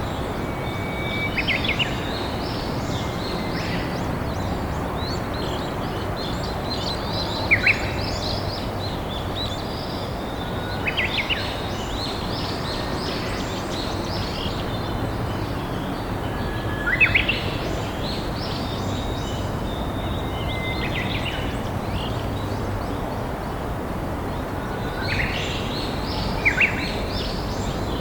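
River water flowing steadily, with wild songbirds singing over it: one bird repeats a short song every few seconds, a held whistle leading into a quick burst of notes, and fainter high chirps come from others.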